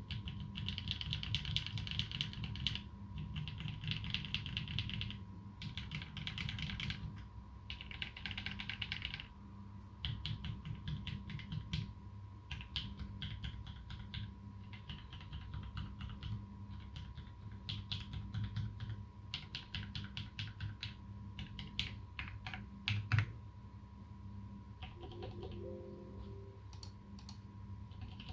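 Typing on a Duck Jetfire mechanical keyboard with lubed Holy Panda tactile switches (clipped sliders) and GMK keycaps: fast runs of keystrokes in bursts of a few seconds with short pauses between them, and one louder stroke a little before the end.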